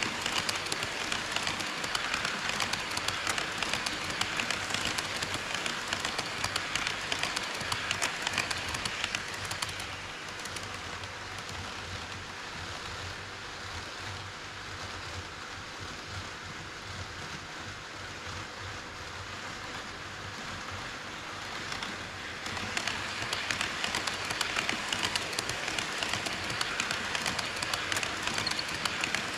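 HO scale model train running on KATO Unitrack: a continuous fast clatter of small wheels over the rail joints, with the motor's hum underneath. It grows quieter for about twelve seconds in the middle, then comes back louder.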